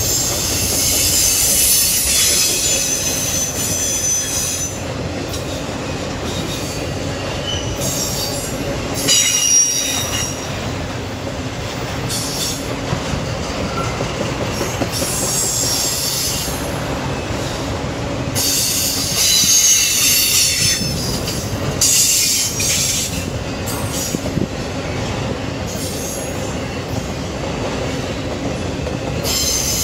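Norfolk Southern intermodal freight cars rolling steadily past, with steel wheels squealing in high-pitched spells that come and go several times.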